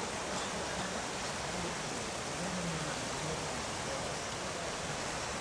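Steady, unbroken rush of water noise, even across all pitches, with no distinct splashes or impacts.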